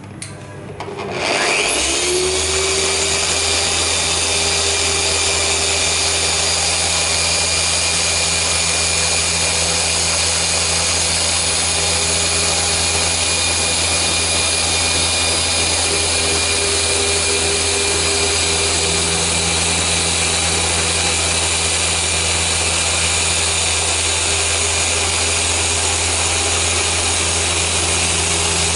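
Rupes LHR15 dual-action (random-orbital) polisher starting up about a second in, then running steadily with its foam pad working over car paint during paint defect correction.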